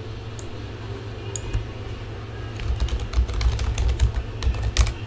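Typing on a computer keyboard: a few scattered key clicks, then a quick run of keystrokes from about halfway in until just before the end.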